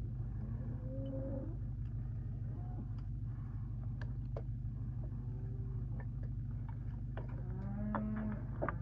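Scattered light metal clicks and knocks of parts being handled, over a steady low hum. Drawn-out calls of cattle lowing in the distance, the clearest near the end.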